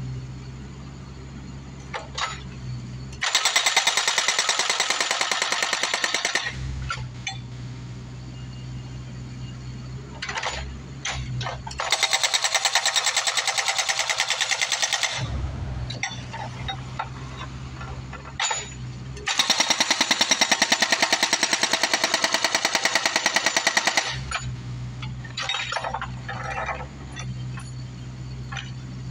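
Hydraulic rock hammer on a Bobcat 331 mini excavator breaking a concrete slab: three runs of rapid, even hammering lasting a few seconds each. Between the runs the excavator's diesel engine runs steadily, with a few sharp knocks.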